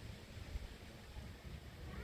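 Wind buffeting a phone's microphone: a low, uneven rumble under a faint hiss.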